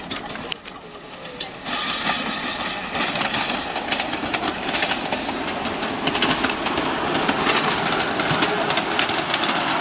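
A 5-inch gauge live-steam miniature locomotive hauling loaded passenger cars past at close range: hissing steam and rapid clicking of wheels on the track. It grows suddenly louder about two seconds in as it draws near.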